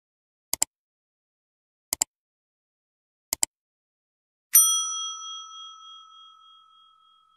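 Subscribe-button animation sound effects: three double mouse-style clicks about a second and a half apart, then a single bright bell ding that rings and slowly fades.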